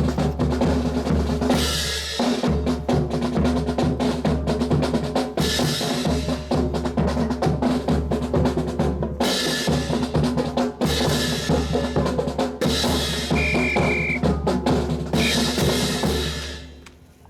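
Marching drum cadence of snare and bass drum, played in a fast, dense rhythm that stops shortly before the end.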